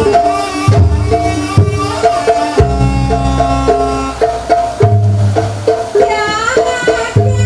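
Live Javanese jaranan gamelan music: a melody of short, struck, pitched notes over steady drum beats and a low booming drum. A wavering high melodic line comes in about six seconds in.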